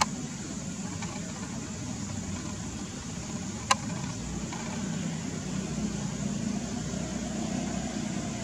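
Steady low background rumble with two sharp clicks, one at the start and one a little under four seconds in.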